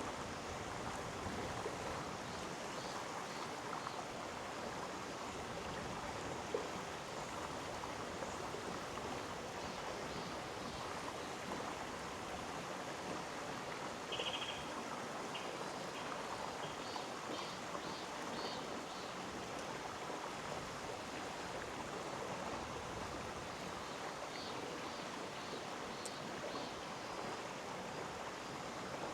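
Mountain stream flowing over rocks in a gorge, a steady rushing of water. A few faint short high chirps sound over it in the second half.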